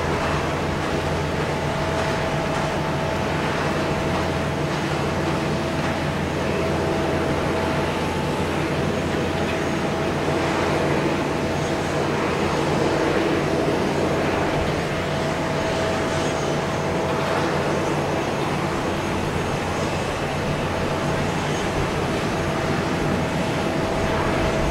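Steady machinery noise on an airport apron beside a parked airliner: a constant low hum under a steady mid-pitched whine, swelling slightly about halfway through.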